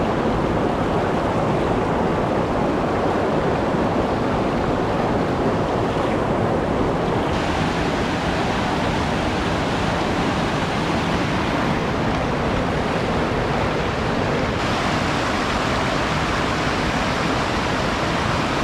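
Mountain creek of white water rushing over boulders: a steady, full rush of flowing water.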